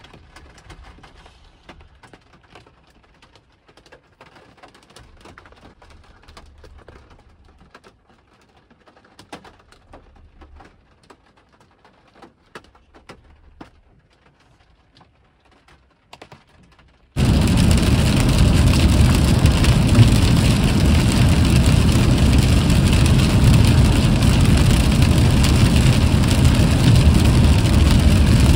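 Faint scattered ticks, then a loud, steady rushing noise that starts suddenly a little past halfway and holds at one level.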